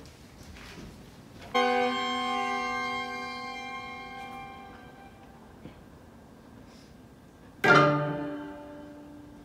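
String quartet with violins and cello sounding a sudden loud chord about a second and a half in that slowly dies away, then a second sharp chord near the end that fades the same way.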